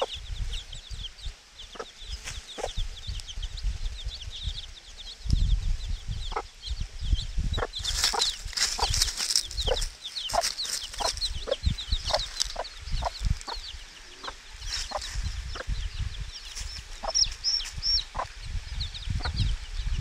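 Week-old chicks peeping: many short, high, falling peeps, thickest about eight to ten seconds in, with the mother hen clucking now and then. Low rumbling thumps come and go underneath.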